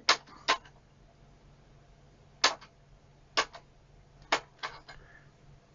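A series of short, sharp clicks, about seven in irregular groups, as buttons are pressed to set the current range on a Keithley 175A bench multimeter.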